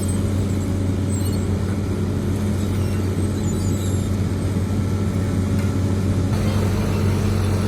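Heavy diesel engine running at a steady speed: an even, low drone.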